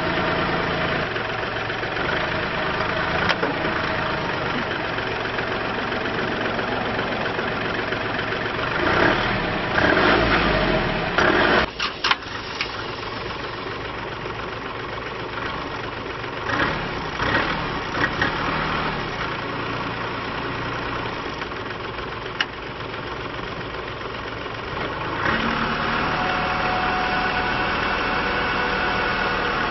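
Kubota L3301D tractor's diesel engine running, with a louder surge about nine to twelve seconds in, then running quieter until it picks up again near the end.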